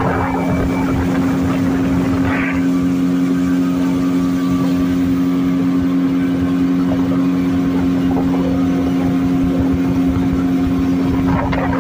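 Outboard motor of a wooden river longboat running at a steady cruising speed: a constant low drone that holds one pitch.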